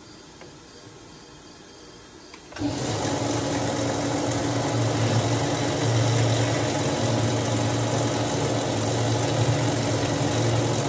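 A metal lathe switches on about two and a half seconds in and runs steadily with a strong hum, its hole saw cutting into a brass trumpet valve casing to remove the interior knuckles.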